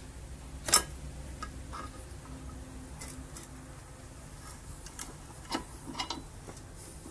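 Light metallic clicks and taps from a homemade steel bar clamp, made from old engine valves, as its threaded screw is fitted and turned down by hand, with one sharp click about a second in and a few more near the end.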